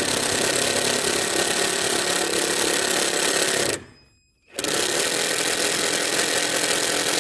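Electric power drill running steadily, driving in the 6 mm screw that fixes the lower side of the clutch-pedal motor actuator. It stops briefly a little under four seconds in, then runs again.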